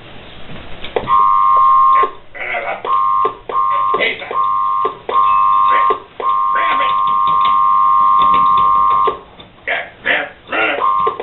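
A steady electronic beep tone, switched on and off in beeps of uneven length (six in all, the last about three seconds long), with bits of a voice heard in the gaps.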